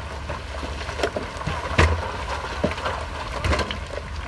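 Heavy earthmoving machine's diesel engine running with a steady low rumble, broken by four sharp knocks, the loudest about two seconds in, as of rock or steel striking.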